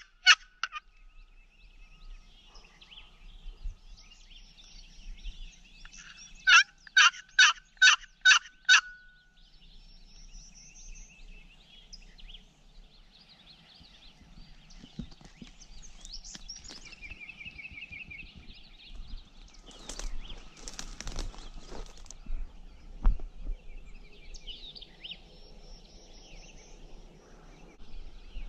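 A wooden turkey box call worked in a run of about six loud, evenly spaced yelps, a few seconds in. Afterwards comes fainter rustling of brush and twigs, with songbirds chirping.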